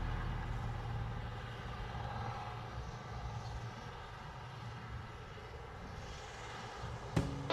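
A faint, steady low drone like a distant engine, as music fades out. Guitar strumming begins about seven seconds in.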